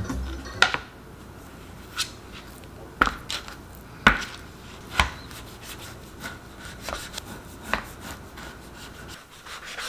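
Cutting board set down on a kitchen counter, then slabs of raw pork belly handled on it and a chef's knife cutting down through the pork onto the board: single knocks about a second apart, with lighter, quicker taps near the end.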